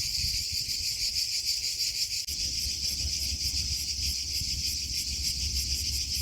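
A steady, high-pitched chorus of insects with a fast, even pulsing, over a low rumble that grows louder about two seconds in.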